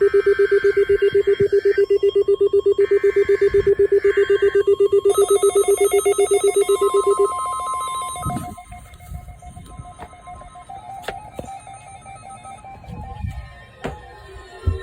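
Weather radio alert alarm beeping rapidly, about seven pulses a second, while two bursts of screechy SAME digital header tones play. This is the activation for the National Weather Service's weekly warning alarm test. The beeping stops abruptly about seven seconds in, leaving fainter steady tones.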